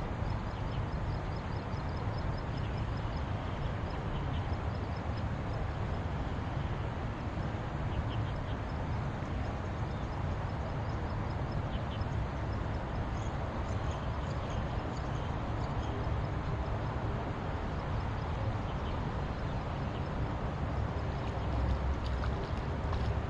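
Wind buffeting the microphone outdoors, a steady low rumble and hiss, with a faint series of high chirps in the first few seconds.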